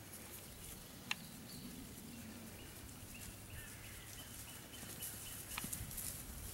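Faint outdoor ambience with thin, high, steady whistles in the middle and two sharp clicks, one about a second in and one near the end.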